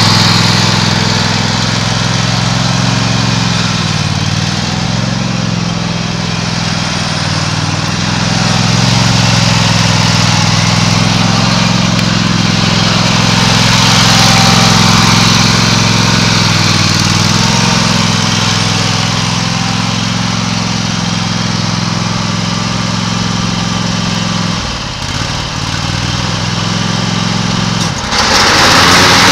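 Husqvarna RZ5426 zero-turn riding mower's engine running steadily as the mower is driven and turned. Near the end it dips briefly, then runs louder and brighter.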